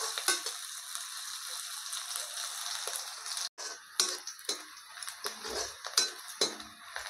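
Sliced onions, green chillies and garlic sizzling in mustard oil in a steel kadai, stirred with a perforated steel spoon. The sizzle cuts out briefly about halfway, then comes back fainter under several sharp scrapes and taps of the spoon on the pan.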